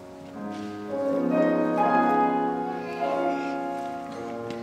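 Slow instrumental accompaniment on piano: held chords and a melody over them, getting louder about a second in.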